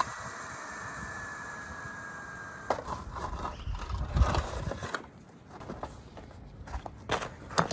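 Compressed air hissing steadily from an air hose into a car tire, with a faint whistle, cutting off sharply under three seconds in. Then a run of clicks, knocks and scrapes as the tire and tools are handled.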